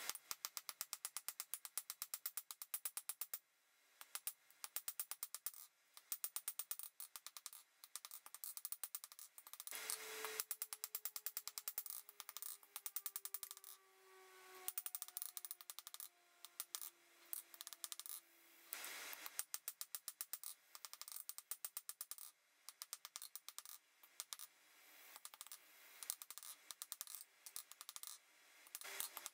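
Hammer blows on hot steel on a RIDGID anvil, struck in quick bursts of many strikes with short pauses between them as the bar is forged.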